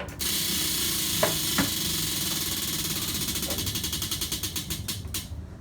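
A spinning prize wheel ticking quickly and then slowing, the ticks spreading farther apart until they stop abruptly, over a steady hiss.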